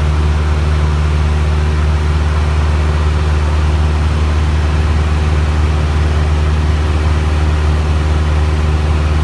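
Small propeller aircraft's engine droning steadily in flight, a loud even low hum with a layer of rushing noise above it.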